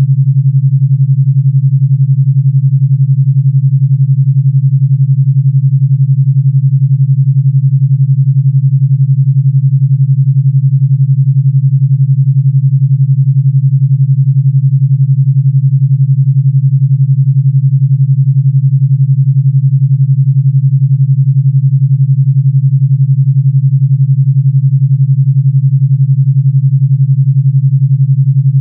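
Steady synthesized 141 Hz pure sine tone, a low hum with a rapid pulsing beat from its 11 Hz alpha-wave modulation.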